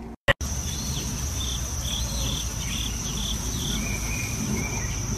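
Insects chirping: a steady high trill with shorter chirps repeating over it. A brief dropout and a sharp click come just after the start.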